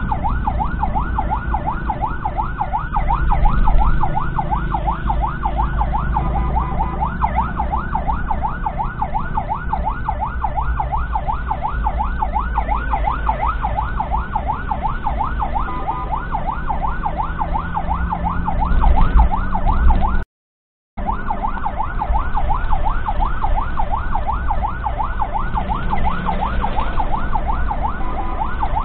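Ambulance siren in a fast yelp, its pitch sweeping up and down about three times a second, heard from inside the ambulance's cab over a low engine and road rumble. The sound cuts out completely for under a second about twenty seconds in.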